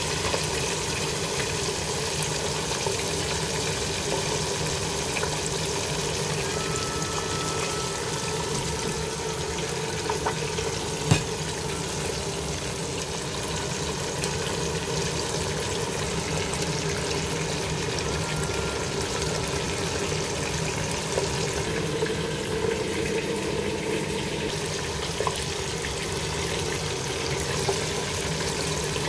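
Whole fish frying in hot oil in a stainless steel pot: a steady sizzle with scattered small pops, and one sharp, louder click about eleven seconds in.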